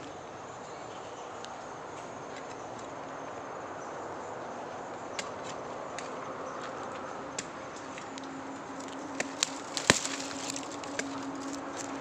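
A hand hoe chopping into dry soil: a few scattered knocks, the loudest about ten seconds in, over a steady outdoor hiss. A faint low hum joins about eight seconds in.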